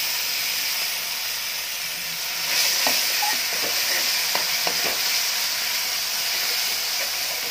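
Hot oil with crackled cumin and nigella seeds sizzling loudly in a kadhai as thick ground raw-mango chutney hits it and is stirred with a spatula. The sizzle is steady and grows a little louder a couple of seconds in, with a few short clicks of the spatula against the pan.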